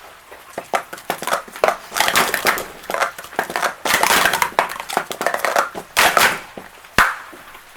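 Plastic sport-stacking cups being rapidly stacked up and down in a timed cycle, a fast run of clacking and sliding. A sharp slap about seven seconds in ends the run, the hands stopping the timer.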